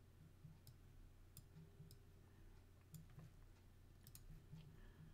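Near silence: faint, scattered computer mouse clicks, about a dozen at irregular intervals, over a low steady hum.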